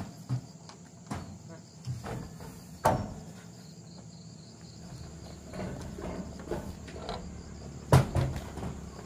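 Steady high insect chirring, with scattered knocks and thuds, the loudest about three and eight seconds in.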